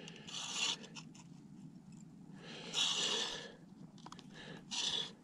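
Three short, breathy exhales from an angler straining to land a fish through the ice, the middle one the longest.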